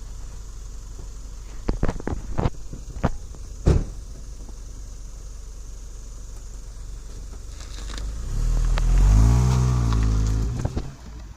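Mitsubishi Eclipse car engine running low, with a few sharp clicks and knocks in the first few seconds, then the engine note rising and falling loudly as the car is driven past about eight seconds in, fading near the end.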